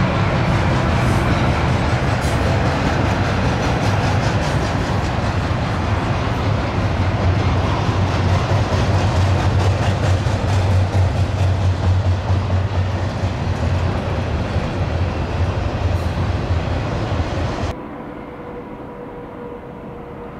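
Union Pacific double-stack intermodal freight cars rolling past: steady, loud wheel-on-rail noise with faint rhythmic wheel clicks. About three seconds before the end the train sound cuts off suddenly, leaving a much quieter background.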